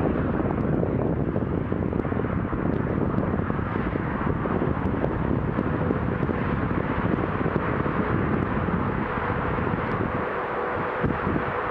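Distant motorway traffic: a steady rumble of cars and trucks crossing a high viaduct. A faint steady tone joins in about eight seconds in.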